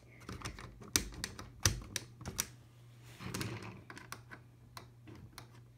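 Irregular small plastic clicks and taps as an HO scale model locomotive is handled and set onto the track, over a faint steady low hum.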